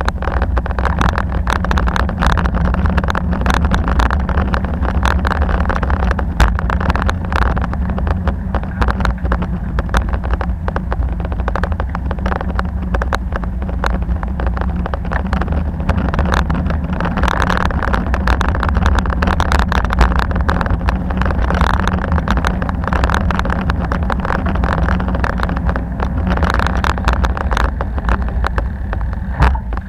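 Steady riding noise on a bicycle: a low rumble of wind on the microphone and tyres on the road, with frequent small clicks and rattles.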